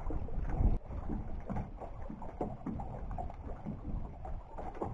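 Wind rumbling on the microphone, heavy for the first second and then cutting out abruptly, over irregular water lapping against the dock.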